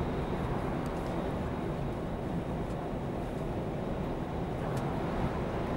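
Steady running drone of a Scania R440 truck at motorway cruising speed, heard from inside the cab: the 13-litre engine with tyre and wind noise, even and unchanging.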